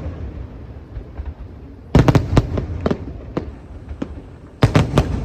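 Aerial fireworks going off: a rapid cluster of sharp bangs about two seconds in and another near the end, with a low rumble and scattered pops between them.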